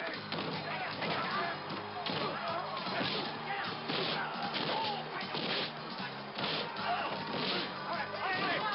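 Film brawl sound effects: repeated punch whacks and crashes, roughly one a second, over background music.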